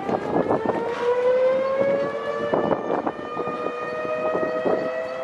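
Open-sided shuttle tram in motion: its drivetrain whine slowly rises in pitch as it gathers speed, with scattered knocks and rattles from the body and benches.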